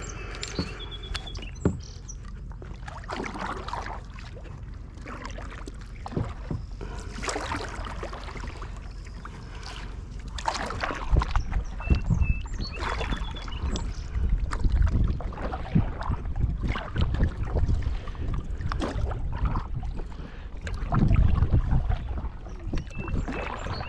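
Kayak paddle strokes dipping and swishing through calm water, one after another at an uneven pace, with low rumbles of wind on the microphone in the second half.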